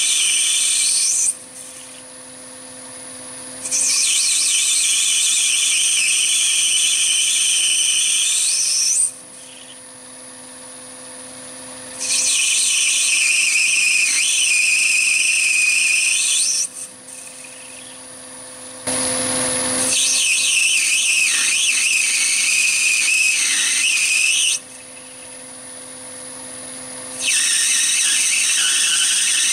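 Brass bar being turned on a Chinese mini lathe: the cutting tool gives a loud high-pitched squeal during each cut, a cut ending about a second in and then four more of about four to five seconds each. In the pauses between cuts the lathe's motor hums steadily and much more quietly.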